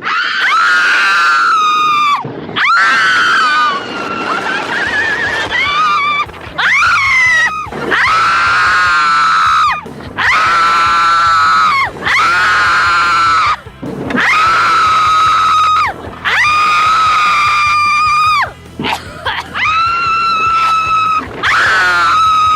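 Riders screaming on a fast thrill ride: long, very high-pitched screams over and over, each held for one to two seconds with short breaks between them.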